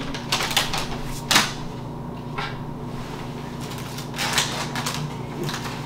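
Cookie package crinkling and rustling in irregular bursts as it is handled and cookies are taken out, with a sharp crackle about a second and a half in.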